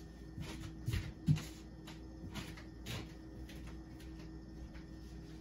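A few light knocks and clatters of dishes and utensils being handled, the sharpest a little over a second in.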